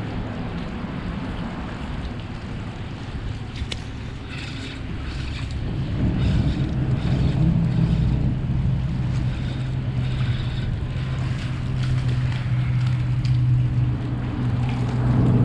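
A low, steady engine drone that grows louder about six seconds in, over wind on the microphone and water lapping at the rocks.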